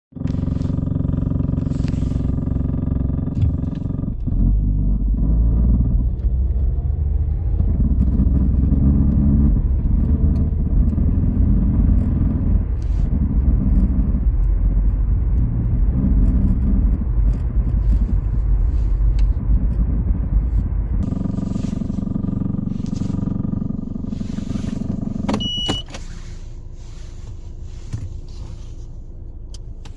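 Vehicle engine running with vibration and knocking from a failed exhaust system, a fault that showed up in cold weather. A heavy, pulsing low rumble builds about four seconds in and eases back after about twenty seconds. A short high tone comes near the end, and then the sound drops away.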